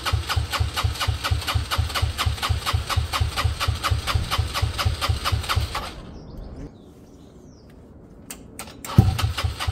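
Benelli Velvet scooter engine cranking over on the starter in a fast, even chug for about six seconds without catching, on a start attempt with fuel poured straight into the carburettor. After a pause of a few seconds and a couple of clicks, it cranks again near the end.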